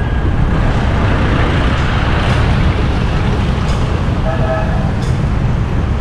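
Busy street traffic: engines of passing road vehicles with a steady rumble, and a short pitched tone, likely a vehicle horn, about four and a half seconds in.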